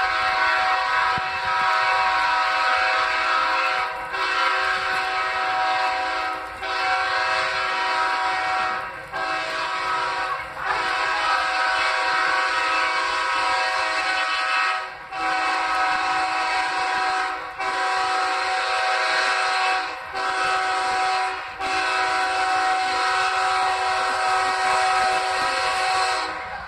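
Air horn of a GE ES44AC diesel-electric locomotive, sounding a chord of several notes in long blasts with about eight short breaks. It stops suddenly near the end.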